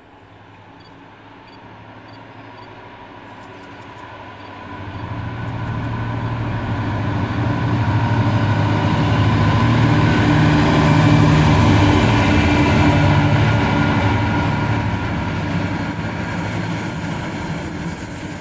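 Class 66 diesel locomotive's two-stroke V12 engine approaching and passing through the station at the head of an engineering train, a deep engine drone that swells from about four seconds in and peaks midway. It then eases off as the loaded flat wagons roll past on the rails.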